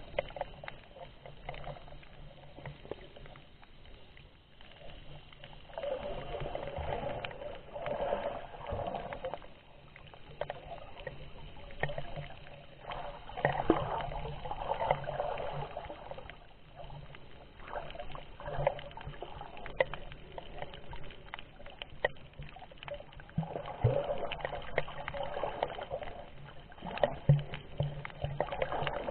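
Muffled swishing and sloshing of water around a submerged camera as a snorkeller swims over a reef. It swells and fades every several seconds, with small clicks and knocks.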